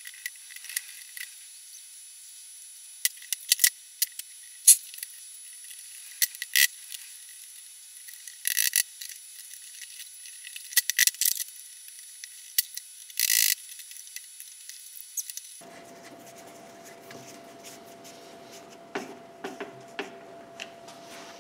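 Scattered clicks, knocks and short scraping rattles of hands working a plastic electric cooling fan and its mounting hardware onto an aluminium radiator. Several scrapes last about half a second, near the middle and at about 13 seconds. About 15 seconds in, the sound changes to a steady hum with fainter knocks.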